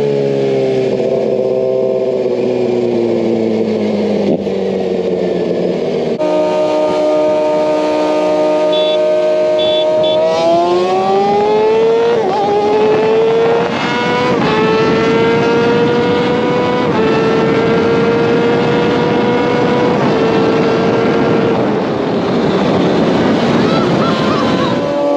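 Kawasaki ZX6R motorcycle engine running, its pitch sinking slowly at first, then climbing sharply about ten seconds in and holding high with small step-ups.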